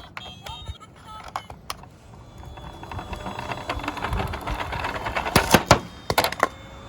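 Small toy cars rolling down a slope track: a dense rattle of little wheels and plastic clicks that builds up, with several loud clacks about five and a half seconds in. A toy's electronic siren tone begins faintly near the end.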